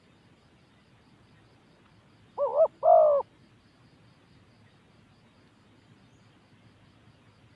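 Spotted dove giving a short two-note coo about two and a half seconds in, the second note slightly longer and louder.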